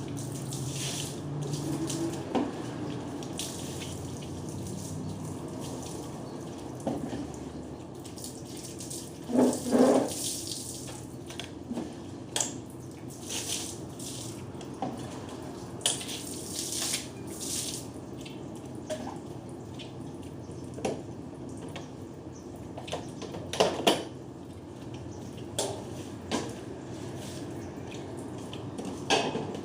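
Water running steadily while floors are washed down, with scattered knocks and clatter; the loudest knocks come about ten seconds in and again near twenty-four seconds.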